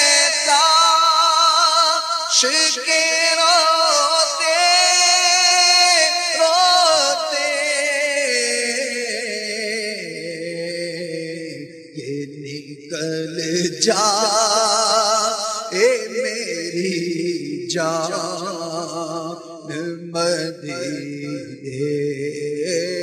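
A male naat reciter singing long, wavering drawn-out notes with no clear words, a melismatic passage between lines of the kalam. The melody sits higher for the first several seconds, then drops lower and breaks into shorter phrases.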